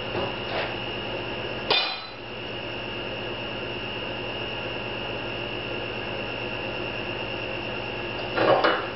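Workshop handling noises: a sharp clack with a brief ring about two seconds in, then a few knocks and clatters near the end, over a steady hum with a high whine.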